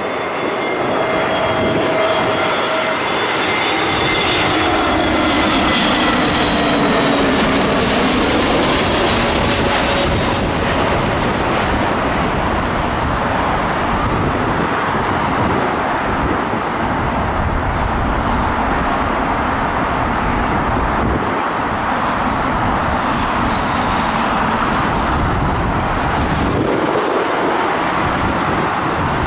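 Jet airliner passing low overhead on final approach to land: a high engine whine that drops in pitch as it goes by, loudest about seven seconds in, then a steady jet roar.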